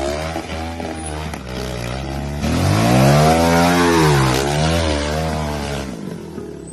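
Trials motorcycle engine revving hard, its pitch rising and falling several times as the throttle is worked. It is loudest about three seconds in and dies away near the end.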